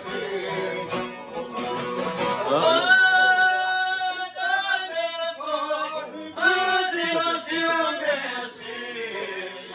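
Albanian folk music on long-necked plucked lutes. About two and a half seconds in, a man's voice enters with an upward slide into a long held note, then sings ornamented, wavering phrases over the plucked strings.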